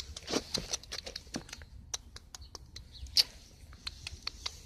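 Irregular soft clicks and taps, several a second, close to the microphone, with a sharper tap about three seconds in.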